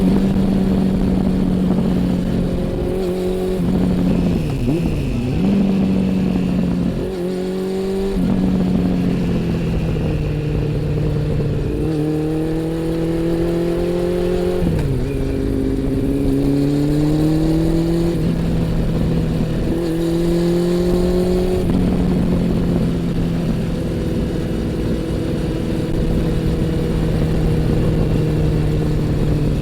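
Honda CB400 Super Four's inline-four engine and exhaust under way: the revs climb and drop sharply several times as the bike is accelerated and shifted or rolled off, then run at a steady pitch for the last several seconds. Wind rushes on the microphone underneath.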